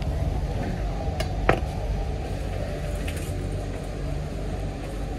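A knife cutting a roasted ham on a plastic cutting board, with a few sharp clicks, the loudest about a second and a half in, over a steady low background rumble.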